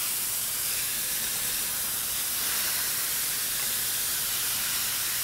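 Lobster and shellfish stock hitting a very hot stainless steel sauté pan around a seared grouper fillet, boiling hard and giving off a steady loud hiss of steam. This is the braising liquid flashing to a rolling boil in the searing-hot pan.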